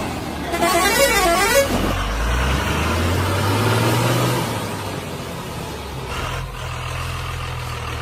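A warbling horn-like tone for about the first second and a half, then a heavy vehicle engine running steadily, rising slightly in pitch around the middle.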